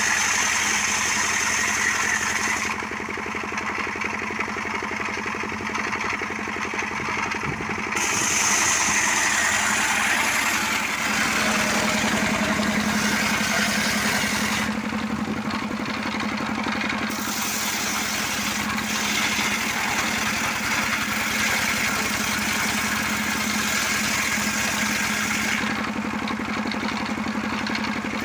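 Small motorcycle engine running steadily, powering a homemade wood-cutting saw rig, with a high hiss above it that drops away three times for a few seconds.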